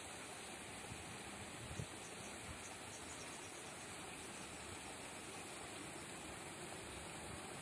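Steady rushing hiss of flowing river water, with one brief low thump about two seconds in.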